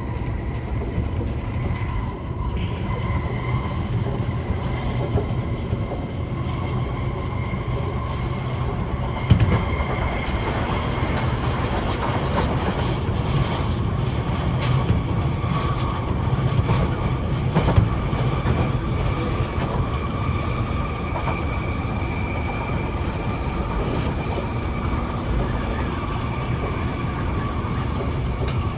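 Kawasaki-Nippon Sharyo C151 metro train running between stations, heard from inside the car: a steady low rumble of wheels on rail with a whine of the traction motors held at a few fixed tones that drift slightly higher partway through. Two short knocks stand out, about a third of the way in and again past halfway.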